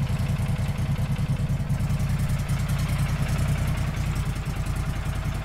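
A machine's engine running steadily, with a fast, even pulse and a low hum.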